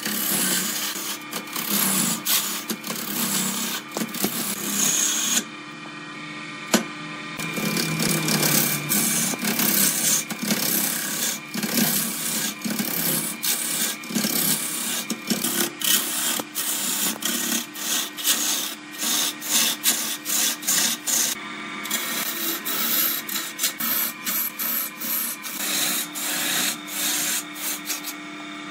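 A turning tool cutting into a spinning jackfruit-wood blank on a lathe: a continuous rough scraping of shavings being cut, full of short clicks, over the lathe's steady hum. The cutting briefly lets up about five to seven seconds in and again around twenty-one seconds.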